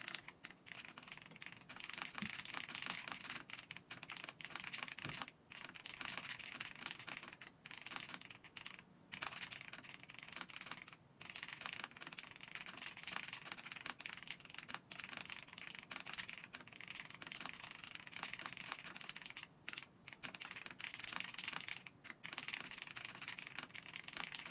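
Fast, continuous typing on a Keychron V6 Max full-size mechanical keyboard: a dense stream of key clacks, broken by a few short pauses.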